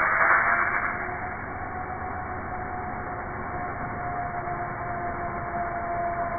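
Ryobi 1900 PSI electric pressure washer spraying a jet through its turbo nozzle: a steady hiss of water with a faint steady whine from the pump motor, louder for about the first second.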